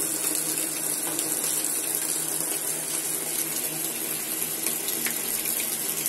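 Water pouring steadily from the fill inlet of a Mabe top-loading washer-dryer into its empty basket as the machine fills on its minimum water level.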